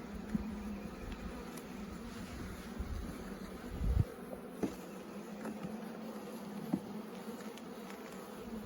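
Honeybees buzzing around an open hive during an inspection, a steady low hum. A thump about four seconds in, with a few light clicks after it.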